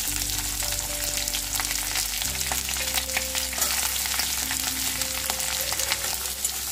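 Diced potatoes sizzling and crackling in hot mustard oil in a kadai, with small sharp clicks of oil spattering and a metal spatula scraping the pan as they are stirred.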